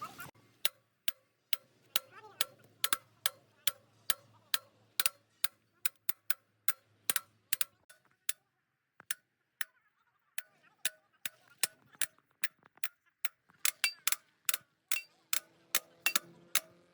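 A long series of sharp ticking clicks, about two to three a second, that stop briefly about eight seconds in and then resume faster.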